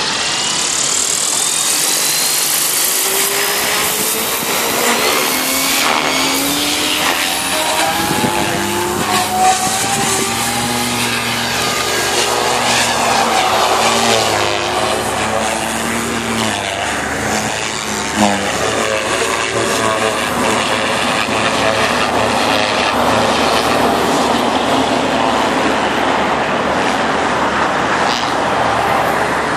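Devil 380 Fast electric RC helicopter spooling up, its motor and rotor whine rising steadily in pitch over the first couple of seconds, then flying: a continuous whine and rotor hum that rise and fall in pitch as it manoeuvres.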